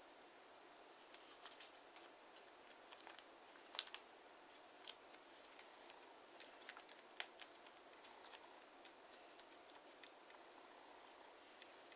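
Faint clicks and crackles of TANT origami paper being creased and shaped by hand, scattered and irregular, with a sharper crackle about four seconds in and another about seven seconds in.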